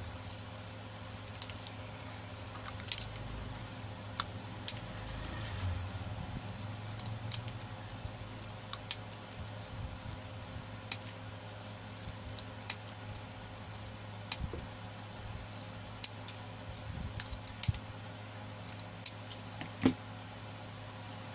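Scattered light clicks and taps of small parts being handled, irregular and a few seconds apart, over a steady low hum.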